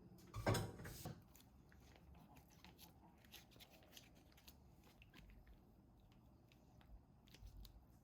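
Kitchen food-preparation handling sounds: one loud knock about half a second in, then scattered light clicks and taps.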